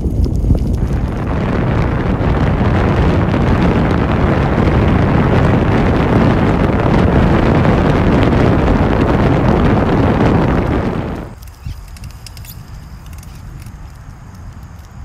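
Wind buffeting the microphone of a moving bicycle, a loud, dense rush that drops off abruptly about eleven seconds in, leaving a much quieter rustle with a few faint clicks.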